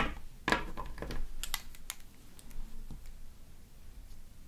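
Long acrylic fingernails clicking and tapping against a small metal bar magnet and against each other as the magnet is picked up and handled, in a string of irregular light clicks.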